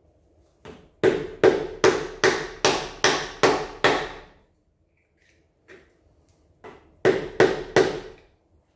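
A small mallet striking the cylinder head of a Dodge 5.9 Magnum V8, trying to break the stuck head loose from the block after its bolts are out. There is one light tap, then eight hard blows about two and a half a second, a pause with a couple of light taps, and three more hard blows near the end.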